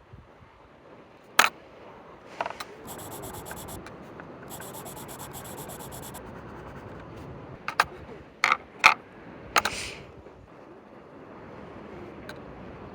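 Drawing tool scratching and rubbing on sketchbook paper, with several sharp clicks or taps, a cluster of them about two thirds of the way in, and two short stretches of a fast high buzz near the start.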